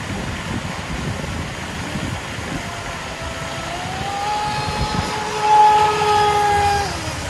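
RC speedboat's brushless electric motor whining at high speed as the boat passes close by. The whine rises in pitch about four seconds in, is loudest a little later, then falls away shortly before the end.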